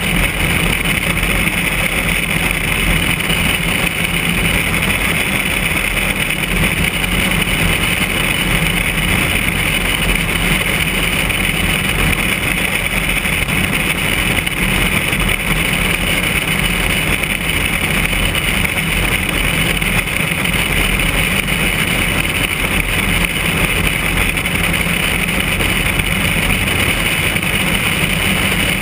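Steady drone of a single-engine light airplane's piston engine and propeller in level flight, mixed with rushing airflow on a camera mounted outside the fuselage.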